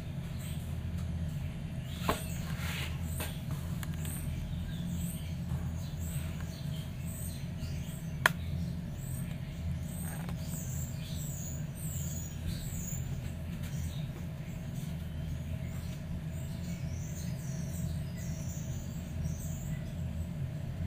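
Steady low hum with a continual scatter of faint, high-pitched chirps, broken by two sharp clicks: one about two seconds in and a louder one about eight seconds in.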